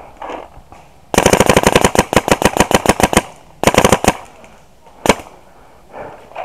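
Proto Rail electronic paintball marker firing a rapid string of about two seconds at roughly ten shots a second, then a shorter burst of about half a second and one single shot.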